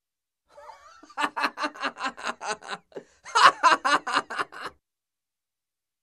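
A mature man's loud, hearty laugh: a soft breathy start, then a quick run of rhythmic 'ha' pulses, a brief breath, and a second, louder run of pulses that then stops.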